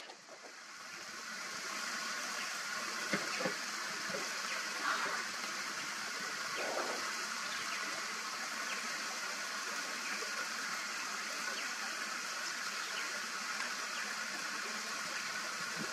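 Steady outdoor background hiss, with a few faint brief sounds scattered through it.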